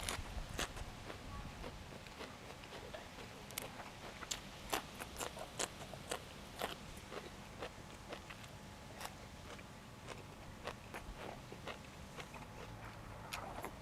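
Close-miked chewing of food, with irregular crisp crunches and clicks every second or so.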